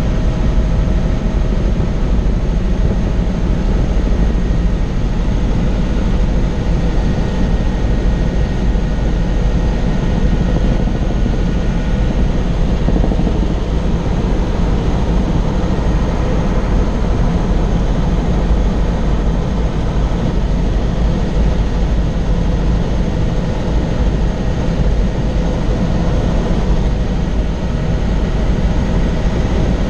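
Helicopter in flight: a loud, steady drone of engine and rotor that holds even, with no change in pitch or level.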